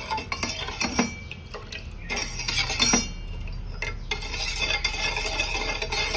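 Steel spoon stirring milk in a stainless steel pan, scraping and tapping against the pan's sides and bottom, with sharper clinks about a second in and near three seconds. The milk is being warmed and stirred to dissolve powdered sugar.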